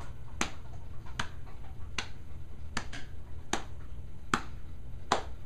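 Hands patting the thighs in a steady beat, seven sharp pats about three-quarters of a second apart, keeping time for a side-to-side patting rhythm.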